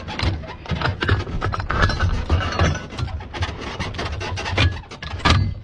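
Close handling noise from reloading an SPG-9 recoilless rifle: a round scraping and knocking against the launcher and its breech, with rubbing and a rapid string of small knocks. There is a louder knock about five seconds in.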